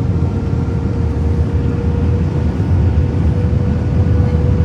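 Airliner cabin noise on descent: a steady low rumble of engines and rushing air with a constant hum over it.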